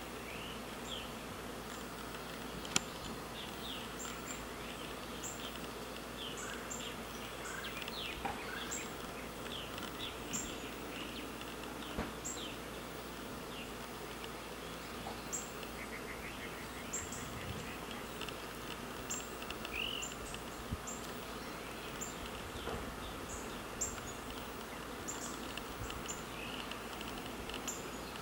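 A swarm of honey bees buzzing steadily as they fly in and out of a hollow oak tree, with scattered short high chirps over the hum.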